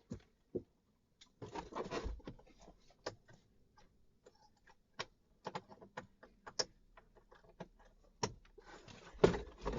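Plastic clicks, knocks and rustling of hands working a wiring connector into the back of a car's instrument cluster. The clicks come scattered and irregular, with a longer rustle about one and a half seconds in.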